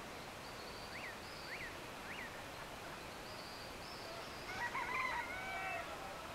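A rooster crowing about two-thirds of the way through, the loudest sound, over a faint dawn chorus: three short, sharp chirps from a small bird about half a second apart starting about a second in, and thin, high repeated notes.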